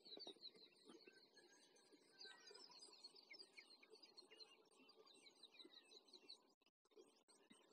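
Faint birdsong: many small birds chirping and twittering in quick, overlapping short notes.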